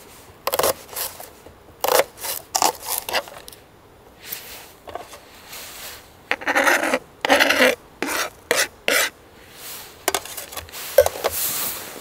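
Knife slicing green onion on a cutting board in a run of quick chops, then the slices are scraped and slid off the board into a steel cooking box, with a sharp knock near the end.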